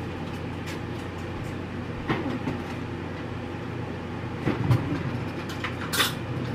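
A steady low appliance-like hum with a few light knocks and clatters from kitchen items being handled, the loudest about four and a half seconds in, and a short rustle near the end.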